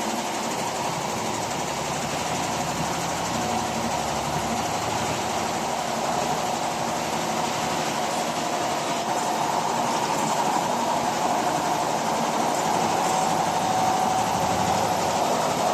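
Industrial quilting and embroidery machine running steadily, a dense mechanical clatter with a faint whine.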